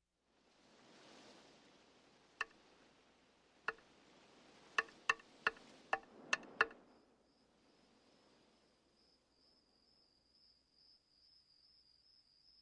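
Night ambience: a soft hiss with a cricket. A series of eight sharp knocks comes closer and closer together, then a cricket chirps steadily in a high, even pulsing trill.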